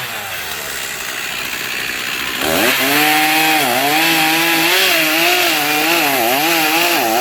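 Chainsaw engine revving up sharply about two and a half seconds in, then running at high speed with its pitch dipping and recovering again and again as the chain bites into the wood.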